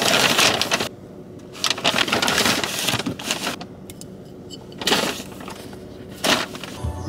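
Paper shopping bag rustling and crinkling as items are packed back into it, in several bursts: two long ones in the first half, then two short ones.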